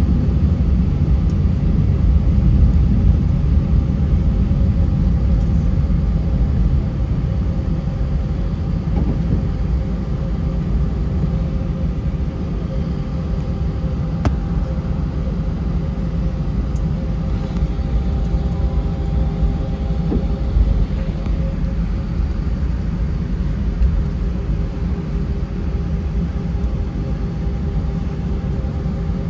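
Cabin noise inside an Airbus A319 with IAE V2500 engines, heard as a steady low rumble with a faint steady engine hum, as the airliner taxis. One sharp click sounds about halfway through.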